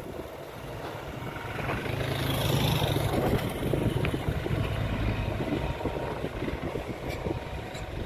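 A road vehicle passing close by, its engine rumble and tyre hiss swelling about two seconds in and then easing away, over wind buffeting the microphone.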